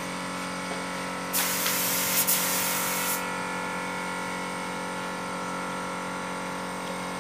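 Compressed-air spray gun hissing in one burst of just under two seconds, starting about a second and a half in, as it sprays PU polish. A steady machine hum runs underneath.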